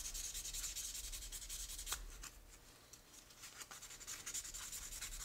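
Quick back-and-forth rubbing of a small orange pad on a small clear plastic part: a faint, dry hiss made of rapid strokes, easing off briefly about halfway. The part is being worked to take out fine scratches.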